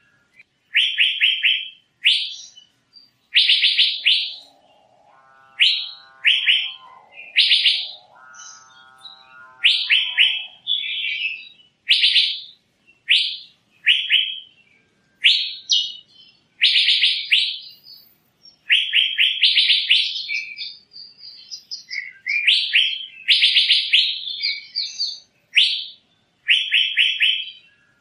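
Asian fairy-bluebird calling: short bursts of rapid high notes, repeated about once a second. Between about five and ten seconds in, a lower, drawn-out call sounds twice beneath them.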